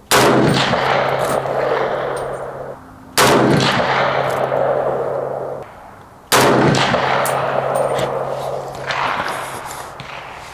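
Century Arms milled-receiver AK-47 firing 7.62x39: three single shots about three seconds apart, each followed by a long echo that dies away over two to three seconds.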